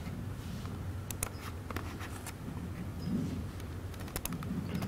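Laptop keyboard and touchpad being worked: scattered, irregular clicks over a steady low hum.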